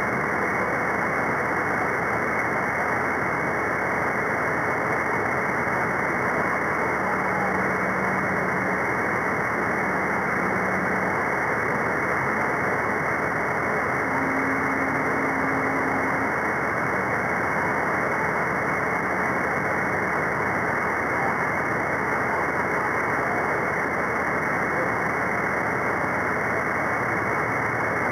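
Steady static hiss from an SDRplay receiver tuned to the CB free band above channel 40, with no station talking. A few faint steady whistle tones come and go, near a third of the way in and again around the middle.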